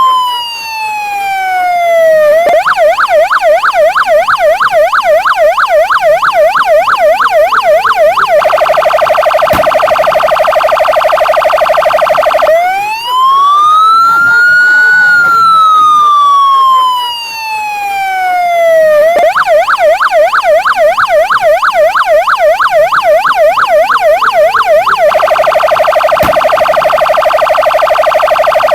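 Argentine police patrol car's electronic siren cycling through its tones. A slow wail falls in pitch, then gives way to a fast yelp of several up-and-down sweeps a second, then a shrill tone held at one pitch. About halfway through the wail rises and falls again and the same cycle repeats.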